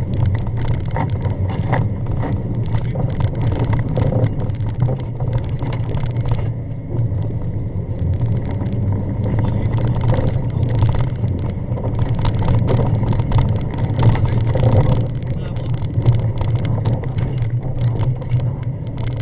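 Jeep Grand Cherokee engine running under load as it is driven hard over a rough dirt off-road track, heard from inside the cabin, with steady engine drone and frequent knocks and rattles from the body and interior over the bumps.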